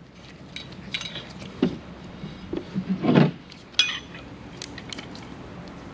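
Scattered light metal clicks and clinks of a washer and nylock nut being fitted by hand onto a gyrocopter rotorhead's teeter bolt, and of hand wrenches being handled.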